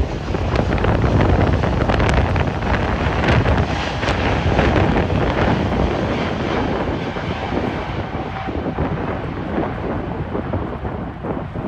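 Storm wind buffeting the phone's microphone over the rumbling rush of a jet aircraft's engines, loudest in the first half and easing off after about six seconds.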